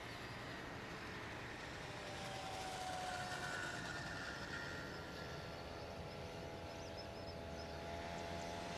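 Distant Boeing 777-200ER's Rolls-Royce Trent engines at takeoff power: a steady rumble with a faint whine, growing slightly louder as the jet rolls down the runway toward the listener.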